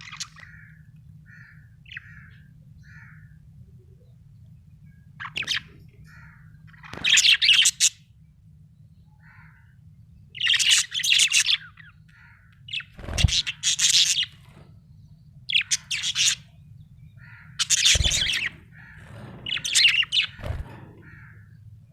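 Budgerigar chirping and warbling: bursts of fast, high chatter about every two to three seconds, with soft single chirps in between.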